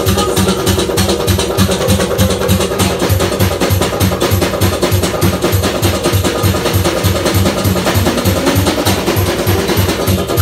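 Live Azerbaijani wedding-band music played through PA speakers: a snare drum and a hand-struck frame drum keep a steady fast beat of about three strokes a second under sustained accordion and keyboard melody.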